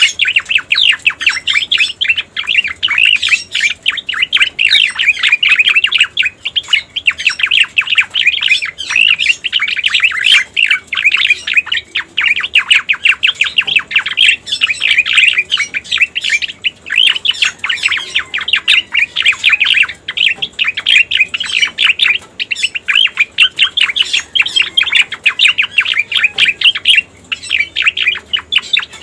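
Cica koreng bird song, as used for a lure (masteran) recording: a loud, rapid chatter of high chirps that runs on almost without a break, pausing briefly every few seconds.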